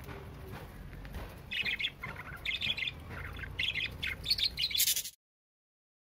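Budgerigars chirping and chattering in short, busy bursts that come thicker toward the end, then cut off abruptly about five seconds in.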